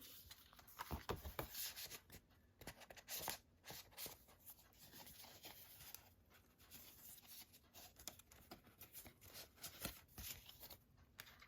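Faint rustling and light taps of card and paper being handled: photo art cards being put back into a cardboard collector's box, in many small scattered touches.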